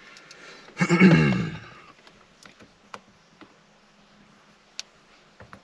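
A short vocal sound falling in pitch about a second in, then scattered light clicks and taps of hands and a squeegee working a wet screen protector onto a touchscreen, over a faint steady hum.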